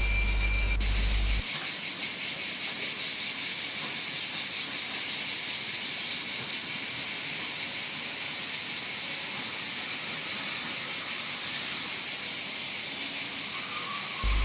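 Cicadas in the trees keeping up a loud, steady, high buzzing chorus.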